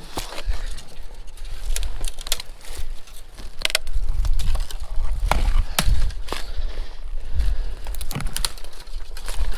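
Irregular crackling and snapping of brush and twigs underfoot as someone pushes through streamside undergrowth, over a low rumble of handling or wind on the microphone.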